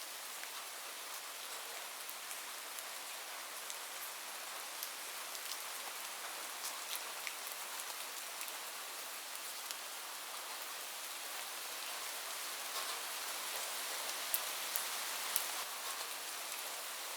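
Heavy rain falling on a roof: a steady hiss with single drops ticking through it, a few louder drop hits near the end.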